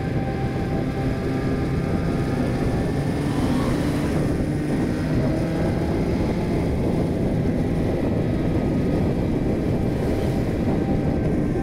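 Motorcycle engine running steadily at cruising speed, with wind rushing over the bike-mounted camera microphone.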